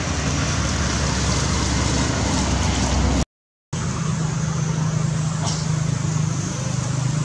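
Steady, loud outdoor background noise with a low, even hum, broken by a half-second of silence at an edit a little over three seconds in.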